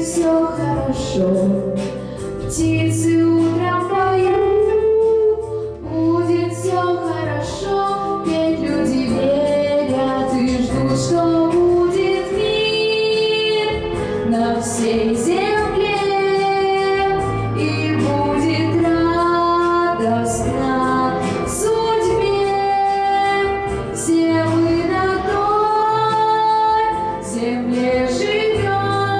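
A teenage girl sings a song solo into a handheld microphone, holding long notes, over instrumental accompaniment.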